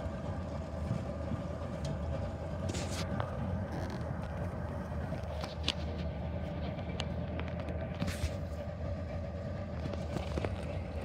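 Boat engine running at a steady idle, a constant low rumble with an unchanging hum, with a few light knocks and clicks on top.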